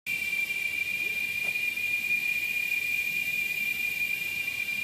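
Insects droning: one unbroken high-pitched tone with a fainter one just above it, over a light hiss.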